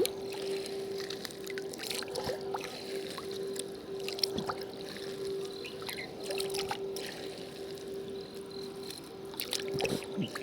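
Water trickling and splashing, with scattered small clicks and knocks and a steady hum throughout.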